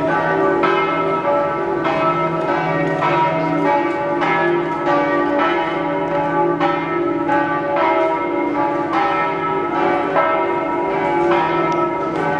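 Large church bells of St Mark's Campanile pealing, several bells struck in quick succession about twice a second, their strokes ringing on over a steady low hum.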